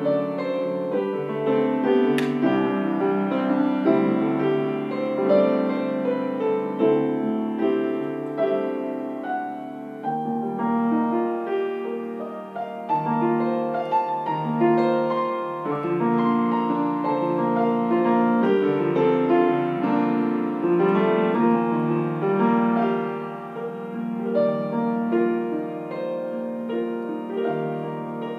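Grand piano played solo: an improvised piece of sustained chords with a melody over them, ringing on between notes.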